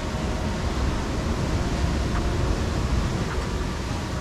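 Steady low rumble of the sea washing against coastal rocks, mixed with wind noise on the microphone.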